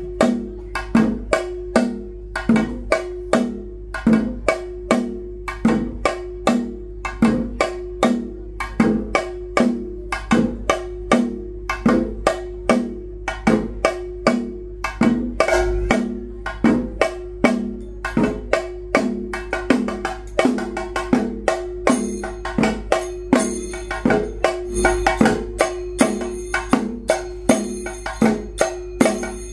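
Ritual drumming with a steady, even beat of about two to three strokes a second over a held tone. About two-thirds of the way in, a high ringing tone joins the drumming.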